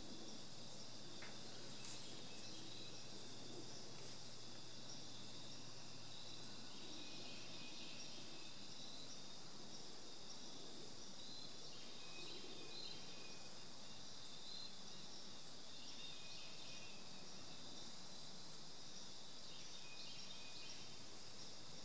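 Steady outdoor insect chorus, a continuous high trilling, with short bird calls every few seconds. A faint low hum stops about a third of the way in.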